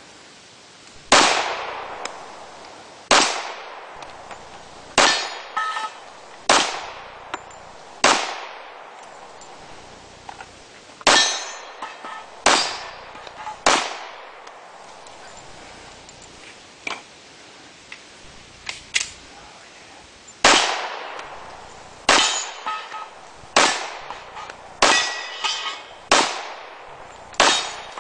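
A handgun firing single shots at steel target plates, about fifteen shots in all, mostly one to two seconds apart with a few longer pauses. Some shots are followed by the short metallic ring of a bullet striking steel.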